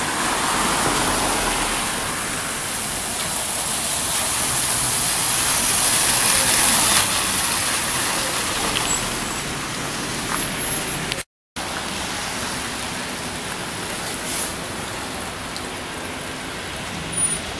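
Street traffic on a wet road: a steady hiss of tyres on wet asphalt that swells a little toward the middle, broken by a short gap about two-thirds of the way through.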